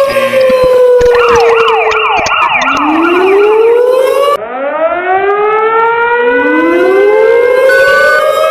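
Emergency-alert siren tones in layers. A slowly falling wail gives way to a fast up-and-down yelping sweep, then to a series of overlapping wind-up wails that rise again and again, with short steady beeps near the end.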